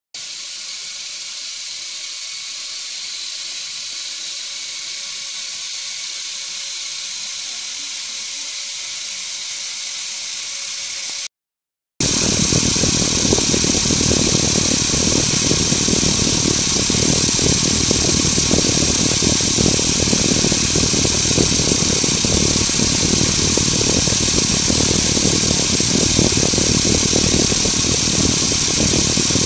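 Small electric motor of a Lego Technic model running with a steady whir. About eleven seconds in it drops out for a moment, then comes back louder and rougher, with a deeper rumble underneath.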